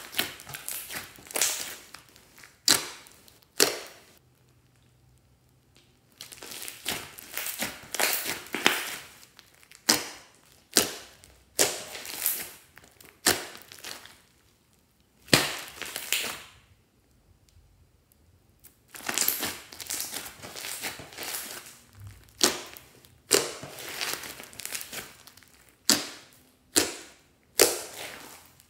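Hands squeezing, folding and stretching thick slime mixed with small beads: repeated bursts of crackling and squishing, one per squeeze, with a couple of short pauses.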